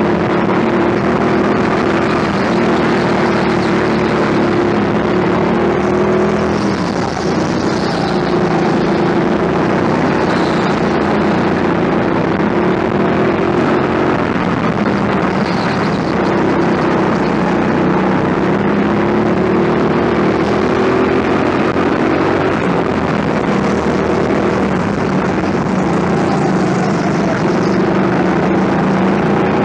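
Go-kart engine running continuously as the kart laps the track, its pitch wavering gently up and down with the throttle through the corners.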